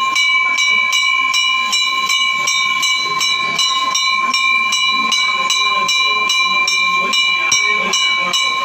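Temple bell ringing without pause through a puja. Its clapper strikes about three times a second, and the bell's tones hold steady between strikes.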